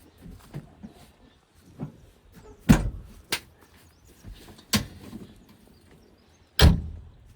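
Irregular heavy thuds and knocks from a backhoe loader loading mud into a tipper truck: four loud ones, the loudest about two and a half seconds in and near the end, with lighter knocks between.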